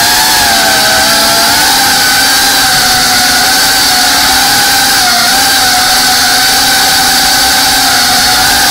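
FPV quadcopter's brushless motors and propellers whining steadily, several close pitches wavering slightly up and down with throttle.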